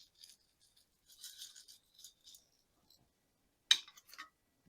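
Granular bonsai soil of akadama and lava rock rattling and trickling as it is added around the plant in a small pot, with two sharp clicks near the end.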